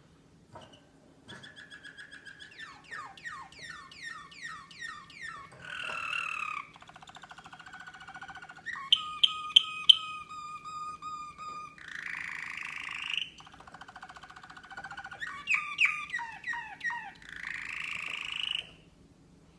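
American Singer canary singing a long, varied song of trills, quick runs of falling notes and buzzy rolls, breaking off shortly before the end.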